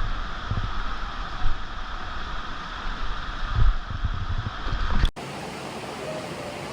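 Steady rushing water of a waterfall, with gusts of wind buffeting the microphone. About five seconds in it cuts off abruptly to a quieter, steady hum.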